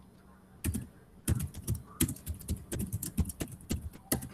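Typing on a computer keyboard: a run of quick, irregular key clicks starting a little over half a second in and stopping just before the end.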